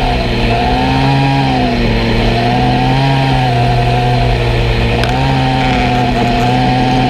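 Craftsman 18-inch chainsaw's engine running steadily above idle, its pitch rising and dipping slightly as the throttle varies.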